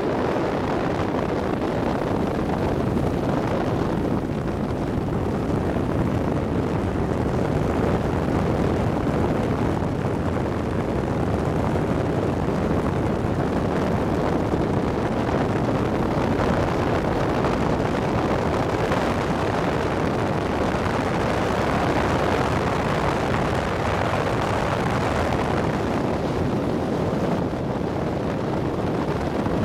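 Outboard motorboat running at planing speed: a steady mix of engine noise and rushing water, unchanging in level.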